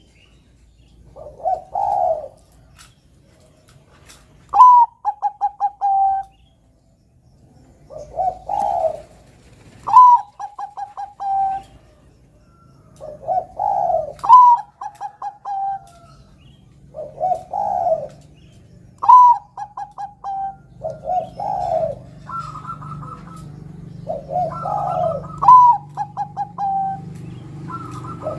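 Zebra dove (perkutut) of the Bangkok strain cooing in repeated phrases every few seconds. A swelling coo alternates with a higher note that breaks into a quick staccato run of four or five short notes.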